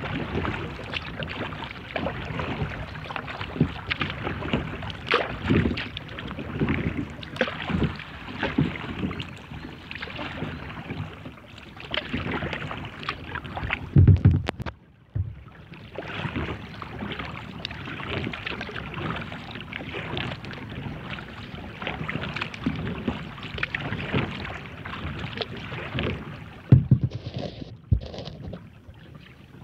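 Kayak paddle strokes dipping and splashing in calm water. A louder thump comes about halfway, followed by a moment of near quiet, and another thump near the end.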